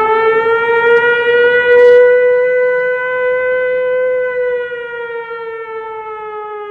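Emergency vehicle siren sounding one long wail. Its pitch finishes rising in the first second, holds steady, then slowly falls from about four seconds in, growing a little quieter.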